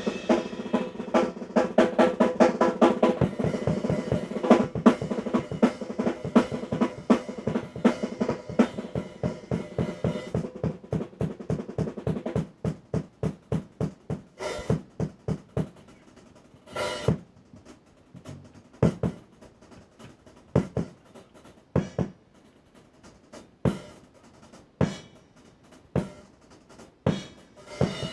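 Drum kit solo: fast, dense rolls across snare, toms and kick drum for about the first ten seconds, then thinning out to sparse single hits spaced a second or more apart, with an occasional cymbal crash.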